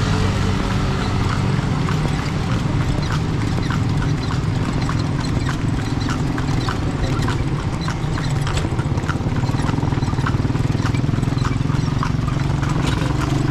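Kalesa horse's hooves clip-clopping at a steady pace, about two hoofbeats a second, over a constant low rumble.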